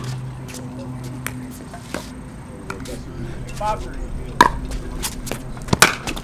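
Pickleball paddles striking a plastic pickleball during a rally: sharp pops, two of them loud in the second half about a second and a half apart, with fainter ticks in between.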